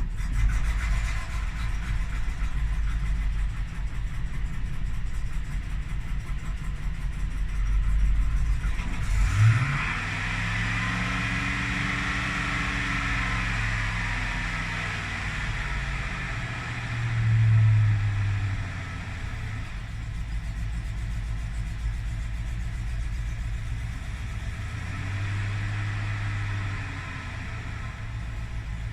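2001 Chevrolet Suburban 2500's 6.0 L Vortec V8 idling roughly on a cold start. The note changes sharply about nine seconds in, then the rpm swells and sags several times. This hunting, near-stalling cold idle came on by itself after a cylinder head rebuild, and its cause is unknown to the owner.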